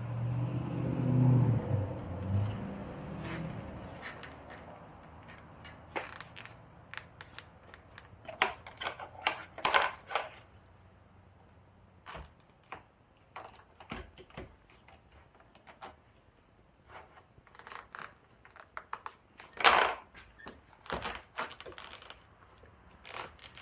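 Plastic door trim panel being handled and pushed into its slot on a car door: scattered clicks, knocks and rustles of plastic against the door. Over the first few seconds a low rumble sits underneath, then fades out.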